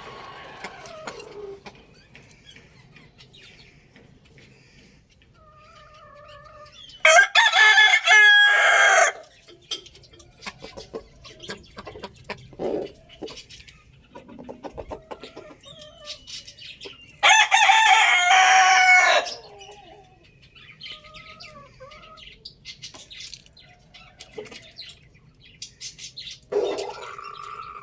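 Rooster crowing: two loud crows of about two seconds each, some ten seconds apart, with a third starting near the end. Softer clucks and short calls fill the gaps between them.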